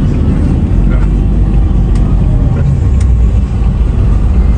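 Steady low road and engine rumble of a moving van, heard from inside the cabin.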